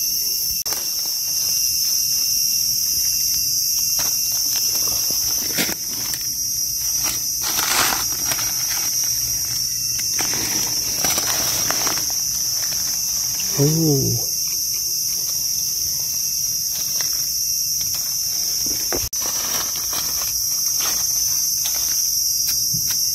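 Steady, high-pitched chorus of insects shrilling without a break, with a few short rustles of dry leaf litter being handled.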